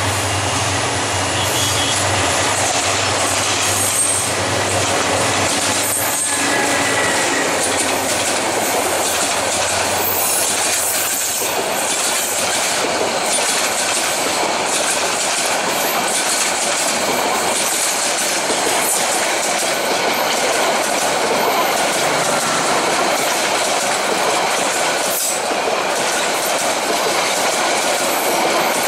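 Diesel-hauled passenger train passing close by: the locomotive's engine drones for the first few seconds as it goes past, then a long string of coaches rolls by with a steady clatter of wheels on the rails.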